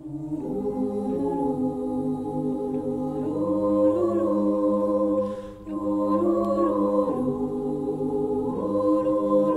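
A choir singing slow, held chords that change every couple of seconds, with a brief dip at a breath about five and a half seconds in.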